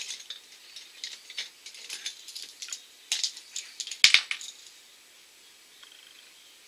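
Small plastic makeup containers being handled and rummaged on a desk: a run of light clicks and rattles, loudest about four seconds in, stopping after about four and a half seconds.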